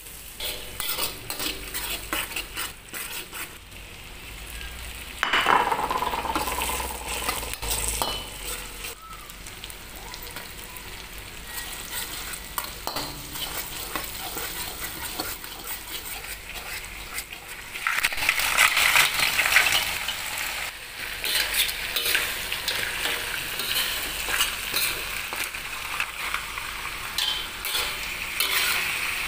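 Butter, garlic and ginger sizzling in a hot pan while a metal spatula scrapes and stirs, with frequent small clicks of metal on the pan. The sizzling grows louder about two-thirds of the way through and stays so.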